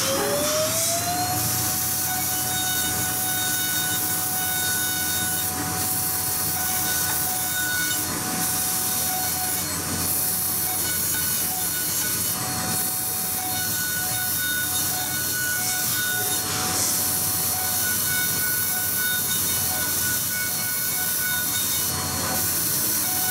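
High-speed CNC milling spindle cutting an aluminium sheet. Its whine rises and levels off about a second in, then holds steady over the hiss of the cutter chipping the metal.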